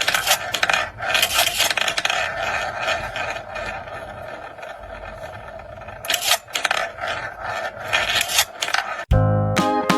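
Rapid, repeated scraping and scratching on a surface, coming in bursts and easing off in the middle; music with plucked notes starts near the end.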